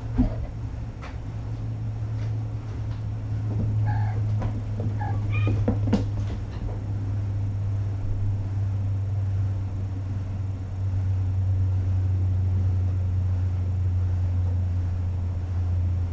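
A cat meows a few short times about four to five and a half seconds in, over a steady low hum. There is a thump just after the start as a kitten jumps down from the couch, and light knocks of paws on the floor.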